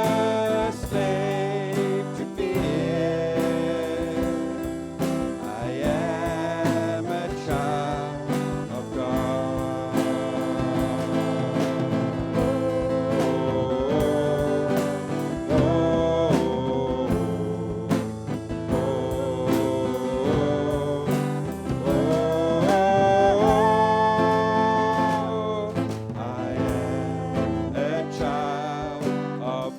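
Live worship music: singers with guitar and bass backing, the voices sliding between held notes.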